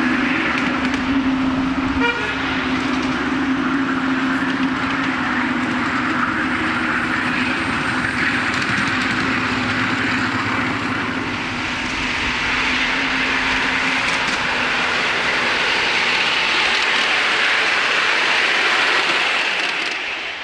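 Miniature steam locomotive running past with a steady, loud hiss of steam. A steady low hum runs underneath and stops about two-thirds of the way through.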